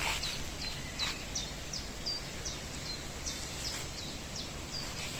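A small bird calling in a steady run of short, high chirps, about three a second, over faint outdoor background noise.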